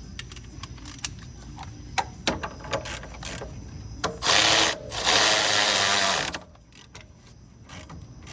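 Scattered ratchet clicks and metal tool clinks, then a power impact wrench runs in two bursts, a short one about four seconds in and a longer one straight after, tightening suspension bolts.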